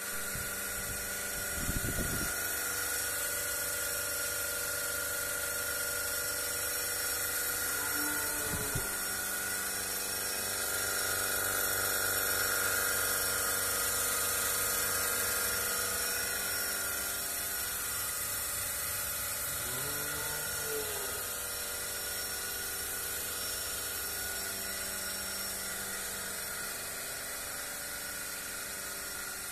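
Milking machine's electric vacuum pump running steadily, a continuous high whine over a hiss. Two short arching calls come through about 8 and 20 seconds in.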